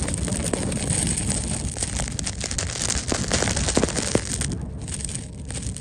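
Low rumble of wind and a slow-moving vehicle, heard from riding in the open back, with dense crackling and rustling throughout.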